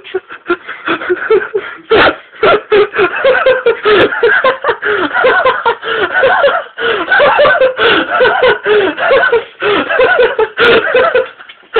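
Loud, sustained laughter in rapid repeated bursts with only brief pauses for breath.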